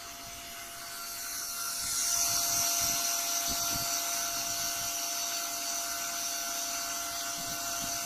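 High-speed dual cooling fan of a laser diode module running with a steady whine over an airy hiss, growing louder about two seconds in.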